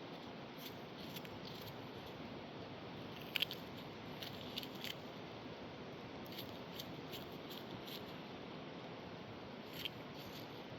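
Steady rush of river water with scattered small, sharp clicks, the loudest a quick double click about three and a half seconds in.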